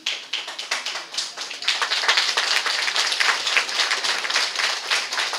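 Theatre audience applauding, many hands clapping at once. The applause swells about a second and a half in and stays strong.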